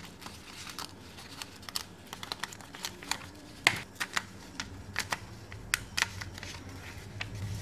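Paper crackling and rustling in irregular small clicks as cut strips of a printed answer sheet are peeled and pulled out of it, with one sharper crackle about halfway through.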